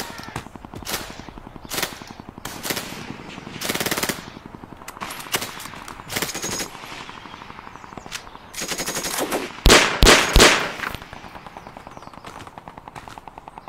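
Battle sound effect of distant machine-gun fire, a fast steady rattle, with louder single shots and short bursts breaking in now and then, the loudest cluster about nine to ten seconds in.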